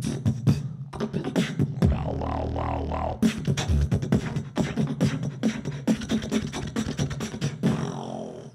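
Two human beatboxers performing a duo routine, layering several vocal sounds at once: rapid, clicky drum hits over a held low bass tone, with warbling pitched lines. The routine cuts off right at the end.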